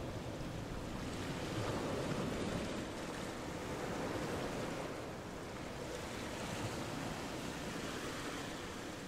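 Xiaomi S10+ robot vacuum-mop running: a steady rushing noise that swells and eases a little as it works.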